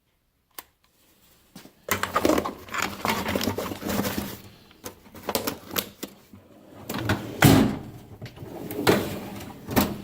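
Tool chest drawer being handled, with metal tools clattering and knocking inside it; it starts about two seconds in, with several sharp knocks.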